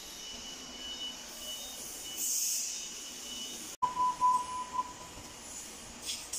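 Workshop machinery noise: a steady high-pitched whine with a short hiss, then, after an abrupt cut, a few short electronic beeps, the loudest sound.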